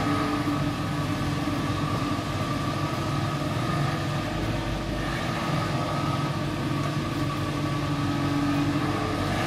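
Steady hum of machinery running, a constant drone made of several steady tones over a low noise.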